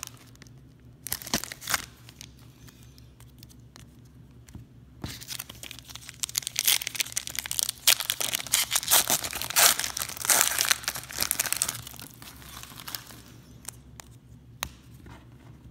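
Baseball card pack wrapper crinkling and tearing as it is opened and the cards pulled out, most busily in the middle stretch. A few light clicks near the end.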